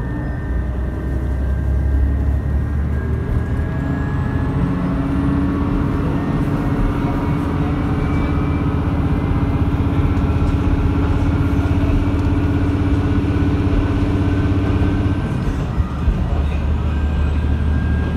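Matsuura Railway MR-600 diesel railcar under way, heard from inside the car: the engine note rises near the start, holds steady under power, then drops away about three-quarters of the way through, over continuous running noise.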